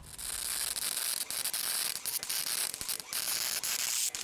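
MIG welder arc crackling and hissing steadily as it welds a joint in a steel exhaust pipe.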